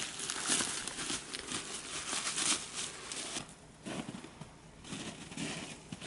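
Footsteps crunching and rustling through dry leaf litter and patches of snow, in an uneven series with short pauses.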